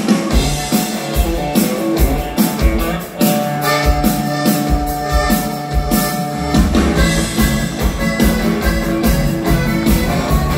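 Live dansband music amplified through a PA: drum kit keeping a steady dance beat under electric guitar and held notes, with no singing.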